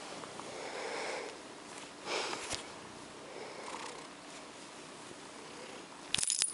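A hand strokes and scratches a purring cat's long fur right against the microphone, making soft rustling. A louder rustle comes about two seconds in, and a sharp, loud one near the end as fur brushes the microphone.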